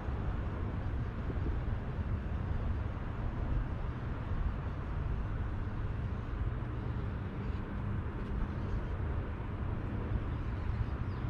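Steady low rumble and hiss of wind on the microphone, with a faint low hum underneath and no distinct events.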